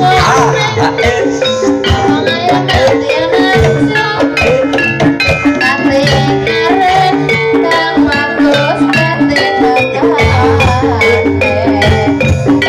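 Instrumental accompaniment of an ebeg troupe: a repeating pitched melody over steady drums and percussion, with no singing.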